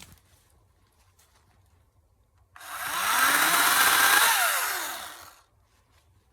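Ryobi 40V battery-powered 14-inch chainsaw triggered once: the motor and chain run up in pitch, run for about three seconds, then wind down.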